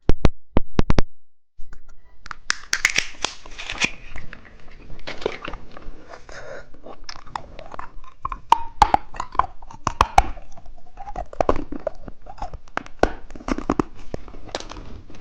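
Plastic candy packaging crinkling and being torn open, with crunchy chewing of candy and sharp clicks near the start.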